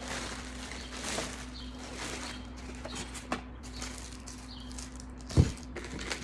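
Rustling and light clicks from parts and packaging being handled, with one heavy thump about five seconds in, over a steady low hum.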